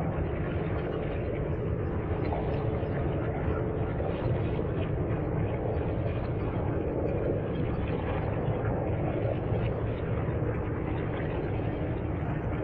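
Steady, unbroken drone of a running engine, heavy in the low end, with a faint held tone in the first few seconds.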